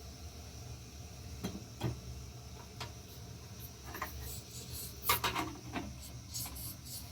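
A few light knocks and rubbing or handling sounds over a steady low hum, the loudest about five seconds in.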